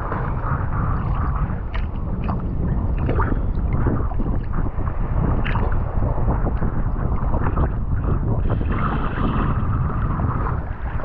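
Seawater sloshing and splashing around a handheld recording device while swimming, with wind buffeting the microphone: a steady low rush broken by frequent small splashes.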